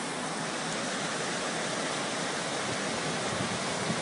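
Flash floodwater rushing down a street in a fast torrent around parked cars: a steady, even rushing noise.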